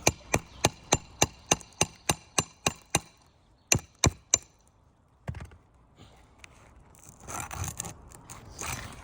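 Quick, even hammer taps on a metal roofing tool, about three a second, driving it under a shingle toward a nail set too high. A few more taps follow, then a scrape near the end.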